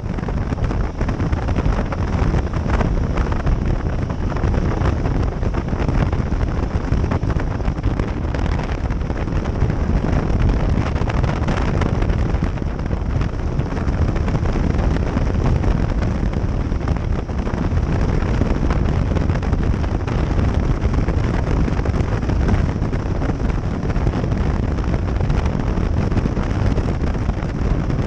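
Steady wind rush over the microphone of a camera on a moving motorcycle, a dense noise heaviest in the low end, with the motorcycle's engine and road noise underneath.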